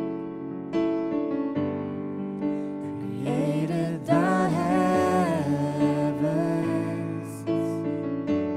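A worship song with sustained keyboard chords, and a voice singing a gliding line through the middle.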